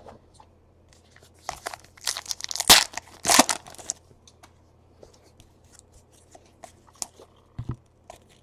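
A 2017 Donruss Baseball pack wrapper being torn open and crinkled, in a run of rips from about a second and a half in to about four seconds, loudest near the middle, then light clicks and rustles as the cards are handled.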